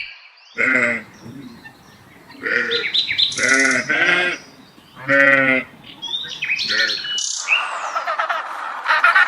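Several loud, wavering bleats from a goat or sheep, with short high bird chirps between them. From about three-quarters of the way through, a dense chattering of small birds takes over.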